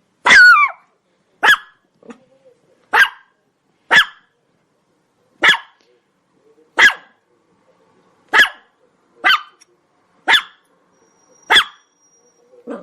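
Dog barking loudly in single sharp barks, about one every second or so, around eleven in all; the first bark is longer, with a falling pitch.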